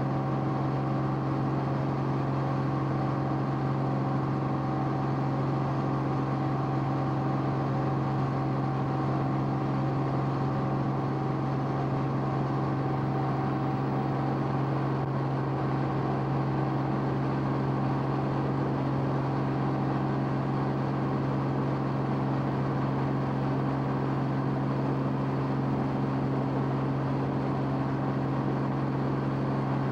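Steady drone of an aircraft's engine heard from on board: a strong low hum with its overtones, unchanging throughout.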